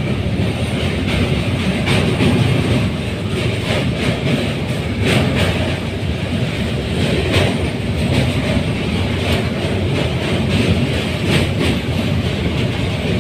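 Train crossing a steel truss bridge, heard from an open coach doorway: a steady, loud rumble of wheels on rails, broken by scattered sharp clacks every second or two.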